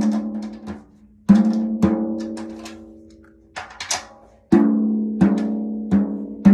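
A drum struck by hand or stick about seven times at an uneven pace, each hit ringing out with a clear pitched tone that slowly dies away. There are a couple of lighter taps in the middle.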